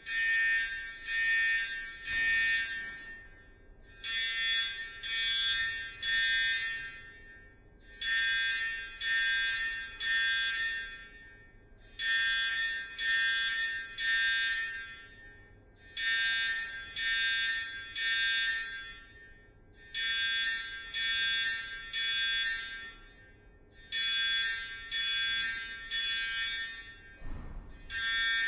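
Electronic alarm horn sounding the temporal-three evacuation pattern: three short buzzing blasts, a pause, then the group again about every four seconds. It is the plant's warning signal to evacuate, meaning efforts to stop a reactor meltdown have failed. A brief low rumble comes in near the end.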